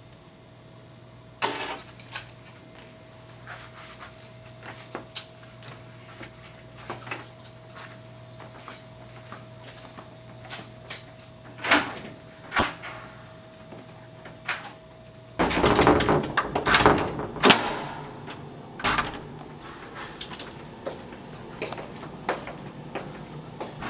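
Clicks and knocks of small objects being handled, over a steady hum with a thin tone that stops suddenly partway through. Then a door is worked, with a loud burst of door noise lasting about two seconds, followed by evenly spaced footsteps.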